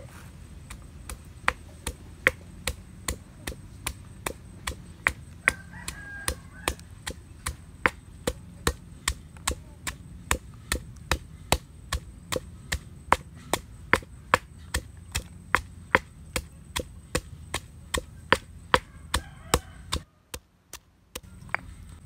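Stone pestle pounding red chilies and garlic in a stone mortar: a steady run of sharp knocks, about two to three a second, stopping briefly near the end.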